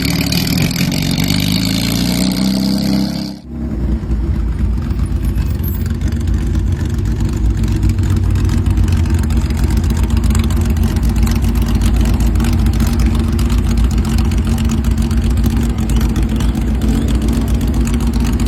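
Lancia Stratos's 2.4-litre Dino V6 accelerating, its pitch rising over the first three seconds. After an abrupt cut, a steady, heavy engine and road drone.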